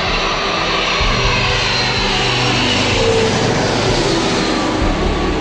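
Twin-engine jet airliner passing low overhead on final approach: the loud rush and whine of its jet engines, with the whine falling in pitch as it goes over.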